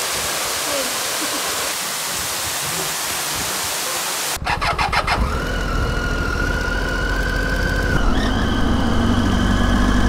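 Waterfall rushing, cut off abruptly about four seconds in. It is followed by a Triumph Tiger 800's three-cylinder engine running with a low rumble and a steady high whine over it.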